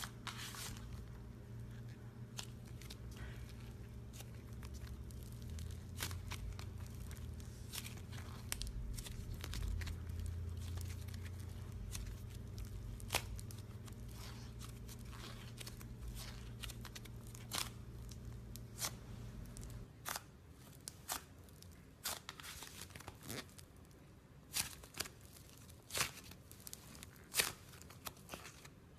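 Slime being squeezed and stretched by hand, with many sharp crackling pops and clicks as air pockets burst; near the end the pops come more sparsely and louder.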